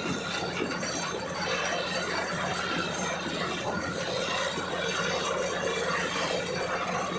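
Borewell drilling rig running: a steady, dense mechanical noise that does not let up.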